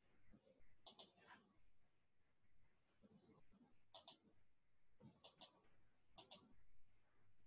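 Near silence broken by four faint computer mouse clicks, each a quick double tick, spread over several seconds.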